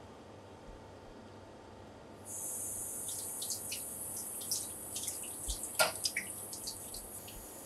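Running tap water, turned on about two seconds in and cut off near the end, splashing over a wet cutting board and a cuttlefish held in the hands, with many small splashes and drips on top of the steady flow.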